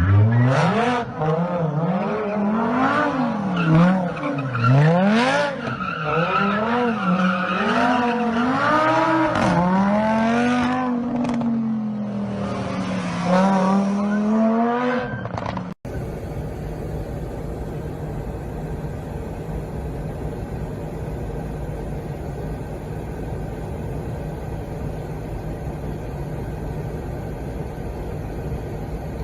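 A car engine revving up and down over and over, its pitch rising and falling about once a second, until a sudden cut about 16 seconds in. After the cut comes a steady, even vehicle engine drone.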